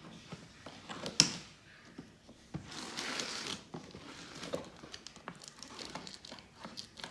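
Packaging of a new mixer grinder being opened and handled: crinkling and rustling with many small clicks, a sharp snap about a second in, and a longer tearing rustle around three seconds in.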